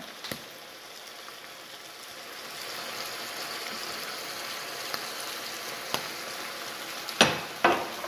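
Squid rings and shrimp sizzling steadily in a frying pan, the sizzle growing a little louder a couple of seconds in. Near the end a metal spoon knocks a couple of times against the pan as the oyster sauce is stirred in.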